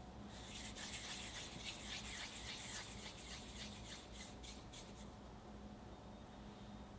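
Palms rubbing together as they roll a small cube of butter and almond-flour cookie dough (baci di dama) into a ball: a continuous dry rubbing that starts just after the beginning and dies away about five seconds in.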